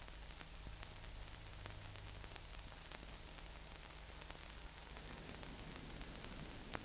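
Faint hiss and low hum of an old recording's soundtrack, with scattered soft clicks and one slightly louder click near the end.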